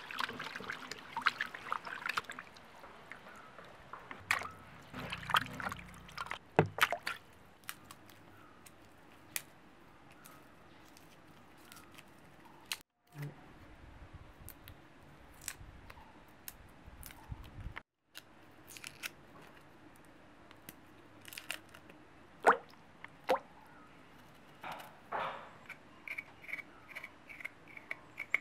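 Hands washing raw chicken wings in a bowl of water, splashing and dripping, then the sparse clicks and scrapes of a knife blade peeling garlic and ginger by hand. Near the end the knife scrapes ginger skin in quick, even strokes.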